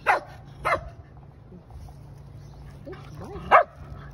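Shetland sheepdog barking close by: two sharp barks at the start, then a short whine and a third bark about three and a half seconds in.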